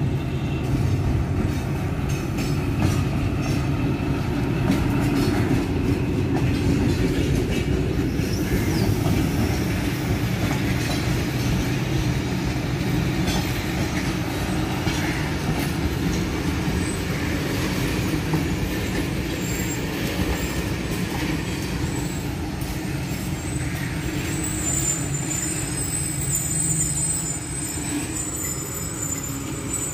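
A diesel-hauled passenger train's coaches running past at speed: a continuous rumble and clatter of steel wheels on the rails. A thin high squeal of the wheels comes in during the last few seconds.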